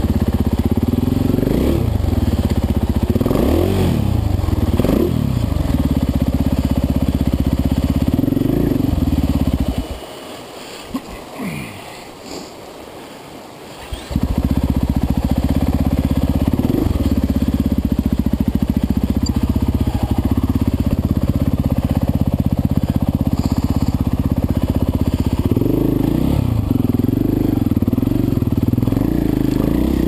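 Dirt bike engine running at low revs with short blips of throttle while crawling over creek rocks. It cuts out about ten seconds in, leaving a few seconds of quieter background, then starts running again about four seconds later.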